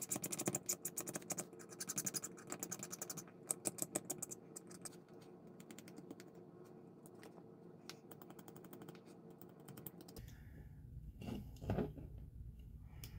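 A metal hobby tool scraping and scratching a small plastic model-kit engine part in quick, rapid strokes while cleaning it up. The strokes are loud and close together for the first four or five seconds, then grow fainter and sparser.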